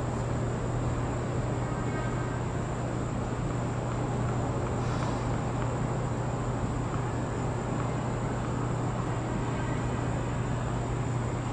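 Steady low hum with an even hiss over it and a faint high whine, unchanging throughout, with no ball strikes.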